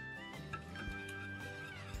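Background instrumental music with long held notes over a few soft low beats.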